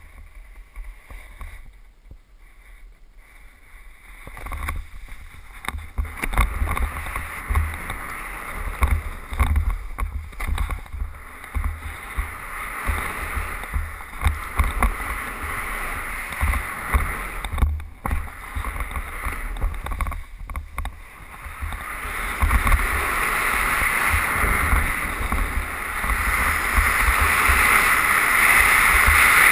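Snowboard sliding and carving through snow, with wind buffeting the helmet camera's microphone as a low rumble. Quiet for the first few seconds, then a continuous rushing hiss builds, loudest over the last several seconds.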